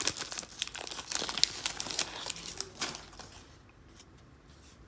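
Foil wrapper of a Press Pass football card pack crinkling and tearing as it is ripped open, a dense crackle for about three seconds that then dies away to faint handling.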